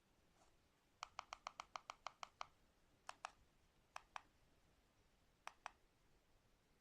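Sharp, light clicks: a quick run of about ten about a second in, then three spaced double clicks.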